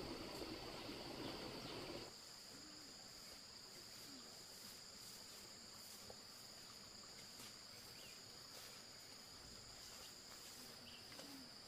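Insects chirring in a steady high-pitched drone. For about the first two seconds a low rushing noise lies under it, then it cuts off sharply.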